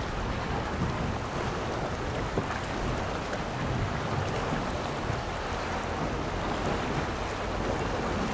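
Wind buffeting the microphone over a steady wash of water.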